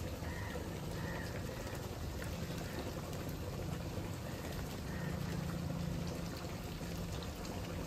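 Prawn masala cooking in a pan, a steady crackling, bubbling sizzle, with a low steady hum underneath.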